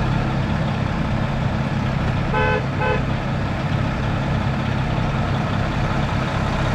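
Heavy farm machine engine running steadily, with two short horn beeps in quick succession about two and a half seconds in.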